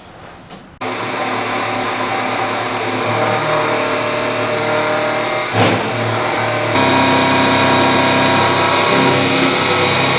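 Machine tool starts abruptly just under a second in and runs with a steady whine of several tones. A sharp knock comes a little past the middle, and soon after the sound grows louder and fuller.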